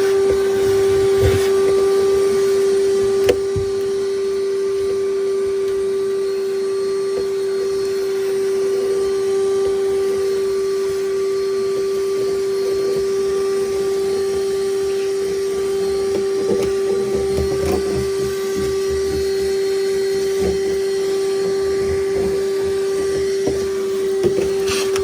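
Vacuum cleaner running steadily with a constant hum, cleaning out the exposed floor of a fiberglass bass boat, with a single sharp click about three seconds in.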